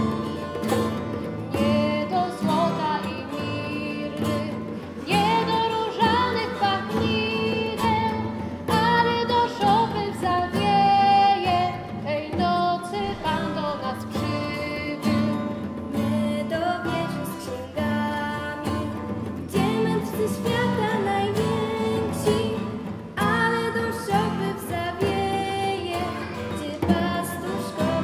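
Girls' choir singing in phrases, accompanied by acoustic guitars.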